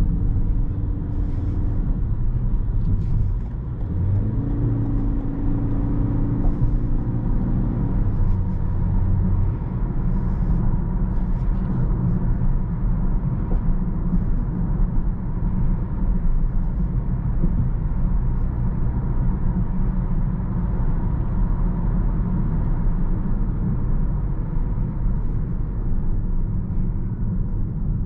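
2022 Toyota Corolla 1.8 Hybrid, with its four-cylinder hybrid drive and e-CVT, driving with a steady low rumble. A humming tone sits over the rumble for the first eight seconds or so, then drops away.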